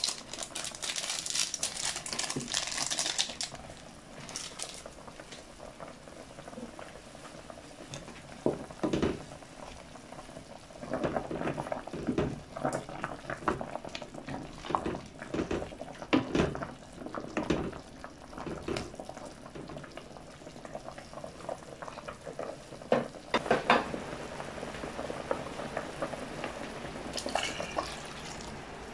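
A pot of chicken broth boiling at a steady bubble. Near the start, foil seasoning sachets crinkle as they are torn and emptied; in the middle, a wooden spoon stirs and knocks against the stainless steel pot; near the end, water is poured in from a bowl.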